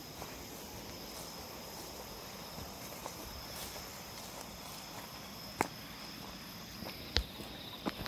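Steady high chirring of insects in the grass, with a couple of sharp footfalls near the end from someone walking.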